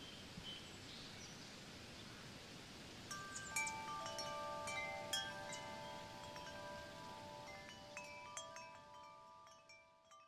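Chimes struck irregularly from about three seconds in, several clear tones ringing on and overlapping, then thinning out and fading near the end, over a faint steady hiss.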